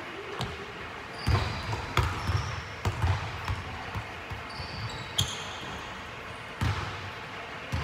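Basketball thudding repeatedly on a hardwood gym floor, each bounce echoing through the hall, with the ball coming back from a rebound to the shooter. A few short, high squeaks of sneakers on the court come through between the bounces.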